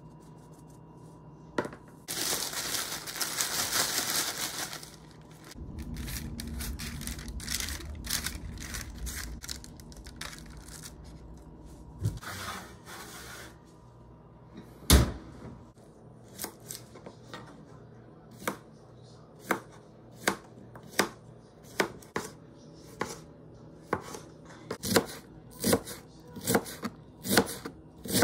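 Chef's knife slicing red cabbage on a cutting board: a run of sharp knocks that speeds up to about two a second near the end. Before that comes a spell of hissing noise, then a low rumble and a single loud knock.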